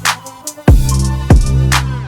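Electronic music with heavy bass-drum hits, sharp drum strokes and synthesizer tones in a steady beat.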